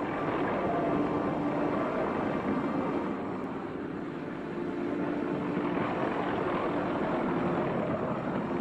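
Type 95 (Ho-Fu) tracked artillery tractor's engine running as the vehicle drives: a steady, rough, noisy drone.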